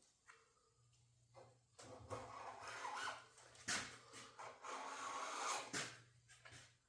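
Utility knife blade scoring a line in 1/8-inch plexiglass: several scratchy drawing strokes, the longest about a second, broken by sharp clicks.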